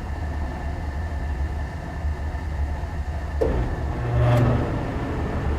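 Gas furnace burners firing with a steady low rumble, settling down as the overfiring gas pressure is turned down toward 3.5 inches of water column. A click comes about three and a half seconds in, and a short pitched hum a little after four seconds.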